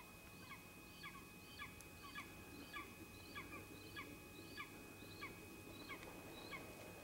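A bird calling a steady series of about a dozen short, faint calls, a little under two a second, that stop near the end.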